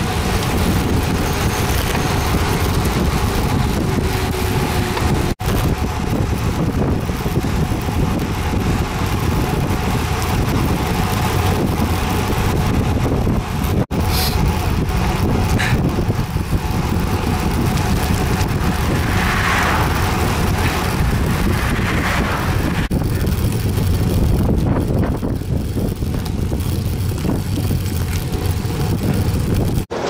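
Strong wind buffeting the microphone of a camera on a moving road bicycle: a loud, steady rumble, broken by short dropouts about 5 and 14 seconds in.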